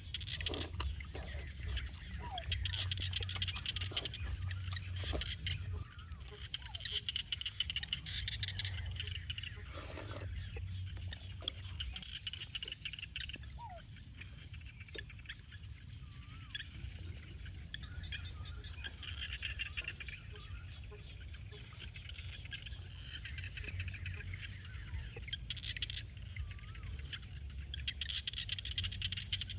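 Rural outdoor chorus of insects and frogs, rising and falling in swells, with a few short chirps. Close eating sounds sit over it: chopsticks clicking on bowls and slurping, with a longer slurp about ten seconds in.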